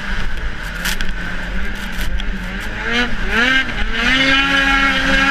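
Ski-Doo snowmobile engine running at speed, heard from on the sled with wind buffeting the microphone. About three seconds in, the engine pitch rises and dips, then holds high and steady.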